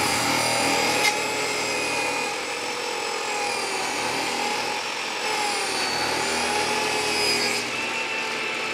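Oliver job site table saw running with its blade speed dialled well down, cutting a clear acrylic sheet pushed through a crosscut sled. A steady whine with a slightly wavering pitch under the cutting noise, with no high-speed burning or melting of the plastic.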